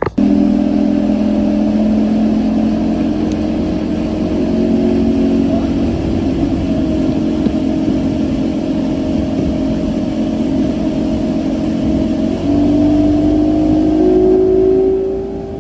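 A boat's outboard motor running steadily at speed, its pitch stepping up a little about twelve seconds in and again near the end.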